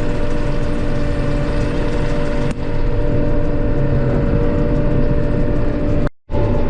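John Deere 8820 combine running hard in down wheat, heard from the cab as a loud, steady drone of engine and threshing machinery. The operator says it is bogging, so the engine is under heavy load. The sound cuts out briefly near the end.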